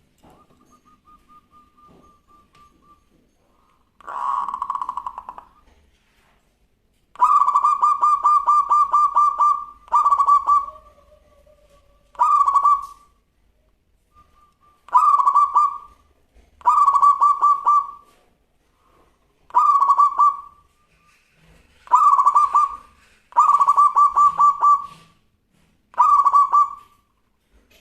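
Zebra dove (perkutut) cooing: about ten bouts of rapid, purring coos, each one to two and a half seconds long, repeated every second or two.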